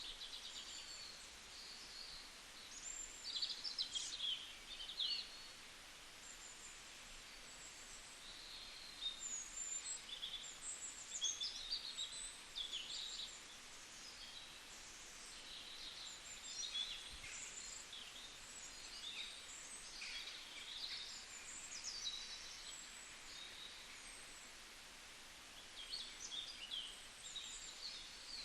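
Songbirds chirping and calling in quick high-pitched clusters, with short sweeping notes, over a steady faint background hiss.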